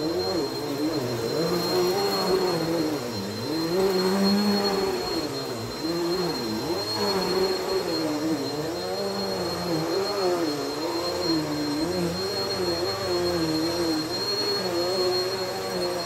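Bagless upright vacuum cleaner running as it is pushed back and forth over carpet. Its motor note dips and rises every second or two over a steady high whine.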